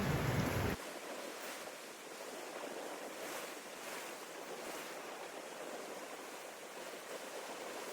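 Sea surf washing on the shoreline: a steady hiss that swells and ebbs. Under a second in, a burst of wind rumble on the microphone cuts off abruptly.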